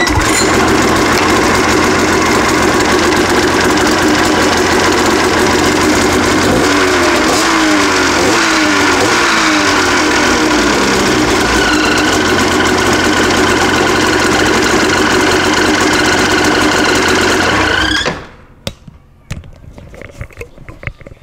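Arctic Cat Mountain Cat 800 snowmobile's two-stroke twin engine running loud and steady, its pitch sliding down for a few seconds midway. It cuts off abruptly about eighteen seconds in, leaving a few faint clicks.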